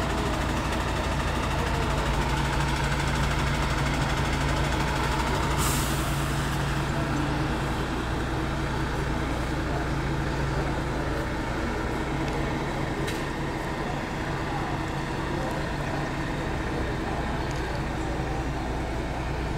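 Heavy truck diesel engine idling steadily with a low hum. About six seconds in there is a short, sharp hiss of air.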